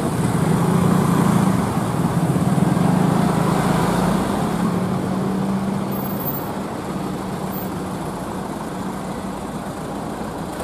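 Roadside traffic: a minibus engine running close by while motorcycles pass, a steady engine drone that eases off after about five seconds.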